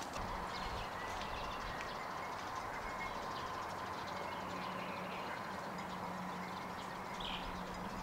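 Quiet rural outdoor ambience: a steady background hum with faint, scattered bird chirps.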